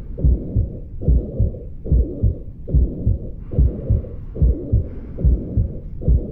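Auscultated heart sounds of mitral insufficiency (mitral regurgitation): a regular low lub-dub, a little over one beat a second, with a continuous blowing murmur filling the space between the beats.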